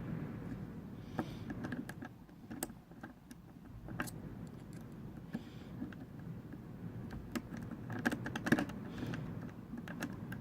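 Lock pick and tension wrench working in the keyway of a Corbin five-pin half euro cylinder: irregular small metallic clicks and scrapes, with a quick cluster of clicks about eight seconds in.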